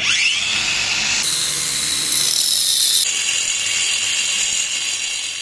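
Angle grinder with a diamond cutting disc spinning up with a rising whine, then cutting dry into a brick with a steady, high grinding whine. The whine shifts abruptly about a second in and again about three seconds in, and fades near the end.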